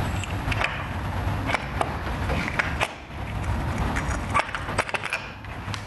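Stock distributor being worked loose and pulled up out of a Harley-Davidson Shovelhead engine: a string of sharp metal clicks, knocks and scrapes.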